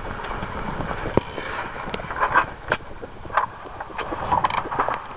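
Wind and sea noise on a small fishing boat, with irregular sharp knocks and clicks from gear and the hull while a fish is being reeled in.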